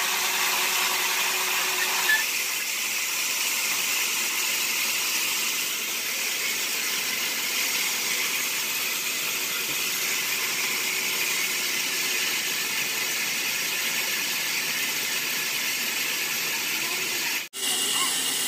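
Sawmill band saws running and cutting logs: a steady high hiss of the blade in the wood with a faint squeal. The sound changes abruptly about two seconds in and drops out for a moment near the end.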